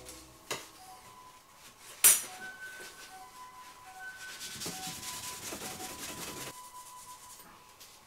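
A sharp click about two seconds in, then a cloth rubbing against a small steel pocket-knife part for about four seconds as it is hand-polished.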